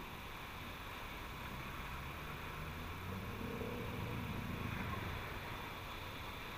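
A distant motor-vehicle engine hums, swelling between about two and a half and five seconds in and then fading, over a steady hiss of shore wind and small waves.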